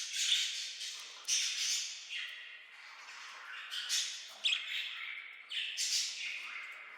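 Budgerigars calling: a string of harsh, scratchy squawks about a second apart, with softer warbling chatter between them.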